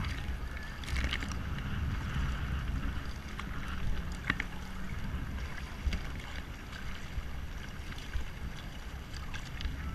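Kayak paddles dipping and splashing in choppy water beside a tandem kayak, with water washing along the hull, a few sharper splashes and drips, and wind rumbling on the microphone.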